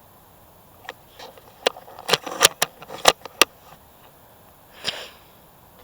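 A run of sharp, close clicks and crackles, like handling and movement noise, then a short sniff about five seconds in.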